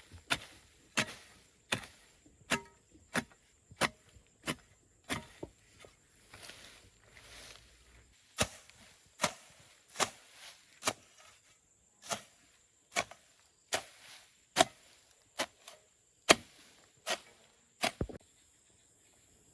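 Repeated chopping blows of a blade or tool on wood, about three strokes every two seconds, with a short softer pause a third of the way in; the blows stop shortly before the end.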